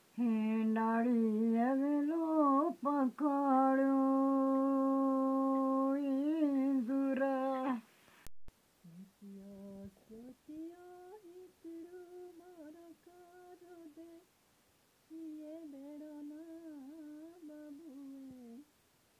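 A woman's voice singing a wordless melody in long held notes. A sudden cut comes about eight seconds in, and then a quieter woman's voice hums a wavering tune, with a short pause partway through.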